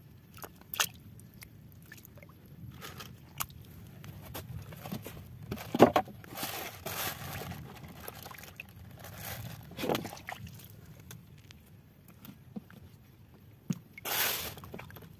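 Irregular water sloshing and splashing with scattered sharp clicks and knocks, as climbing perch are handled at the water's edge and among the catch. The loudest bursts come about six seconds in, about ten seconds in and near the end.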